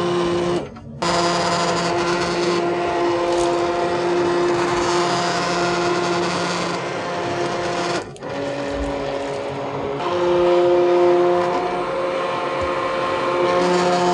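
Hand-held immersion blender running, puréeing a large pot of cooked pumpkin soup: a steady motor whine. It cuts out briefly about a second in and again around eight seconds, then runs on at a slightly different pitch.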